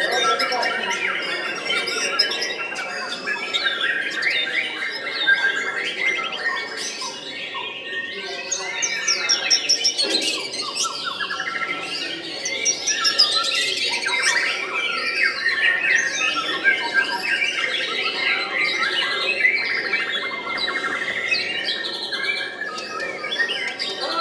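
White-rumped shamas (murai batu) singing in their cages: a dense, unbroken stream of overlapping whistles, trills and chatter.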